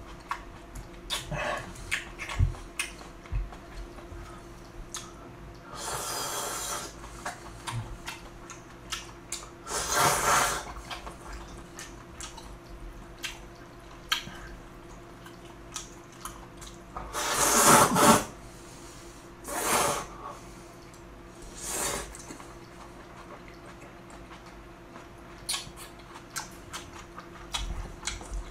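Jjamppong noodles and broth being slurped and chewed: five loud slurps, the loudest about 17 seconds in, with short wet chewing clicks between them.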